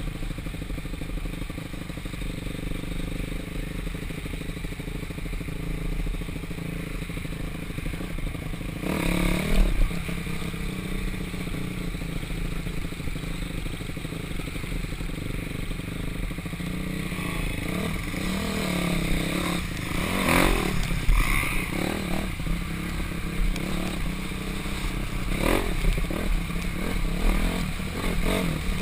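Dirt bike engine running, heard from an onboard GoPro, its pitch rising and falling with the throttle over rough trail. Knocks and clatter from bumps in the ground come through, loudest about nine seconds in and again around twenty seconds.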